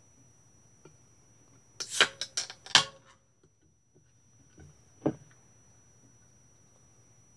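Plastic snack packet crinkling in a short burst of sharp crackles about two seconds in, followed by a single light knock a couple of seconds later.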